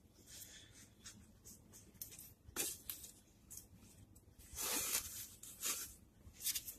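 A cotton T-shirt being pulled open and unfolded, the fabric rustling and swishing in several short bursts, loudest about halfway through. A single light click comes about two and a half seconds in.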